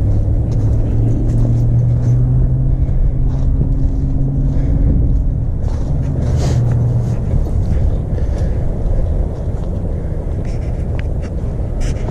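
A vehicle engine idling steadily with a low rumble, with scattered light clicks and knocks over it.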